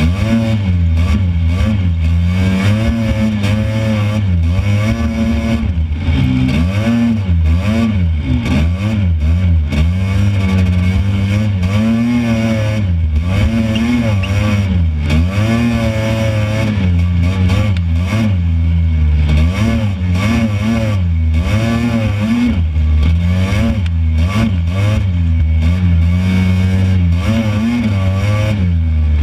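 Off-road buggy engine running under load, its pitch rising and falling every second or two as the throttle is worked driving over sand.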